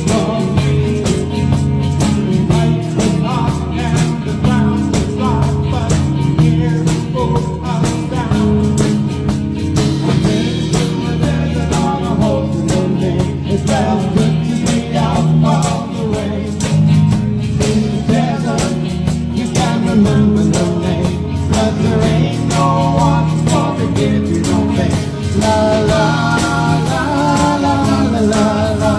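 Live band playing a rock song with a lead singer, over a steady drum beat.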